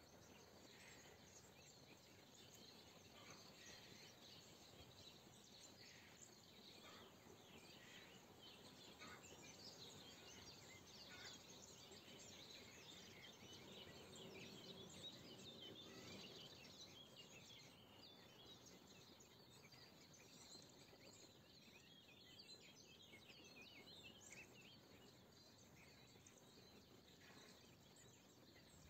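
Faint chorus of many small songbirds chirping and twittering, the calls thickest through the middle and later part. A low, distant rumble swells and fades around the middle.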